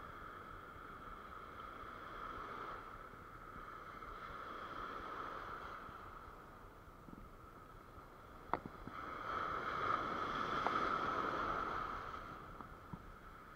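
Small waves washing up a sandy beach, swelling in two surges, the second one about nine seconds in. A single sharp click comes just before the second surge.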